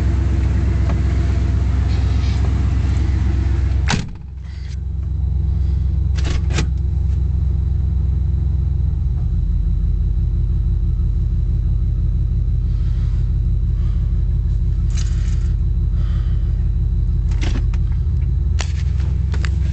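1986 Cadillac Fleetwood Brougham V8 running just after a quick start, heard from inside the cabin as a steady low hum. A sharp click comes about four seconds in and the engine briefly goes quieter. Its note shifts around nine seconds in, and a few more clicks follow near the end.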